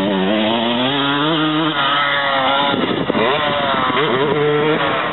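Dirt bike engine revving hard under acceleration. The pitch climbs, drops about two seconds in, climbs again and falls off near the end.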